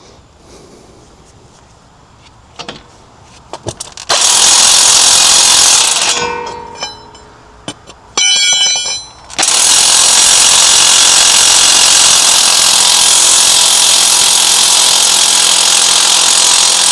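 Impact wrench running against a seized wheel hub fastener: a two-second burst about four seconds in, a short whining burst about eight seconds in, then a long steady run from about nine seconds on as it breaks the fastener loose.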